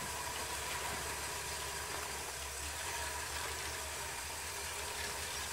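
Early Ford Bronco's engine running at a low, steady idle as the truck creeps slowly over rock.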